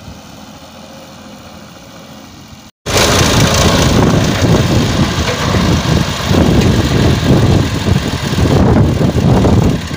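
A tractor engine at full throttle, heard at a distance, pulling a trolley loaded with sand up a slope. After an abrupt cut about three seconds in, a much louder, uneven engine rumble from a Ford tractor and an excavator running close by.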